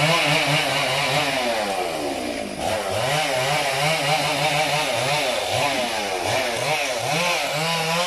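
Chainsaw running and cutting through the branches of a felled tree, its engine pitch rising and falling as it revs and bogs in the wood, with a short drop in revs about two and a half seconds in.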